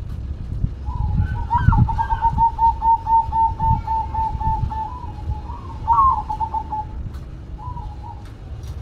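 Zebra dove (perkutut) cooing: a fast, even run of about a dozen repeated coo notes lasting about three seconds, then a shorter phrase and a brief note, over a steady low rumble.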